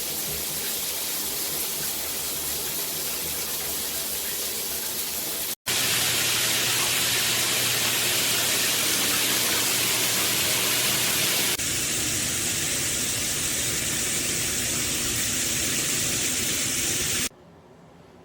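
Water spraying steadily from a Tudoccy rainfall/handheld shower head, a loud even hiss. It changes abruptly twice, louder and brighter about five and a half seconds in and a little softer about eleven and a half seconds in, then stops near the end.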